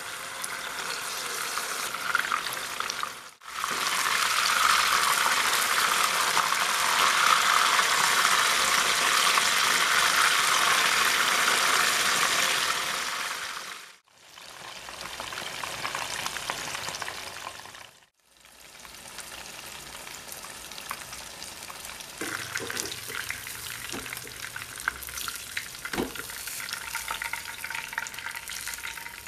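Fish frying in hot oil in a shallow pan, a steady sizzle and crackle that breaks off briefly three times. A few light clicks sound in the later part.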